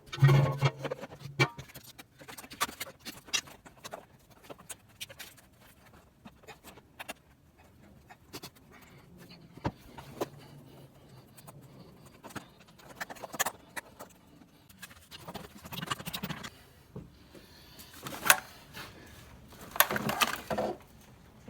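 Irregular metallic clicks, knocks and clatter of hand tools and engine parts being handled while intake manifold bolts are loosened and the manifold is worked free, with short louder bursts of clatter near the start and again in the last few seconds.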